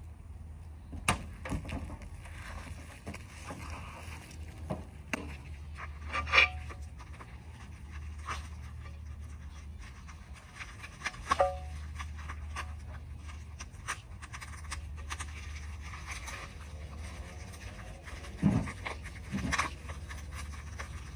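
Handling noise from an air-ride tank being set on and moved about on a pickup's hood: scattered light knocks and scrapes, a couple of short squeaks, and two louder thumps near the end, over a steady low hum.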